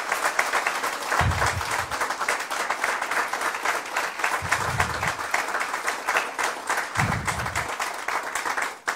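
A crowd applauding steadily for several seconds, dying away near the end.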